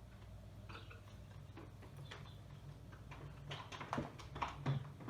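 Hands handling a wireless charger's packaging and USB cable: scattered light clicks and taps that grow busier and louder in the last second and a half, over a low steady hum.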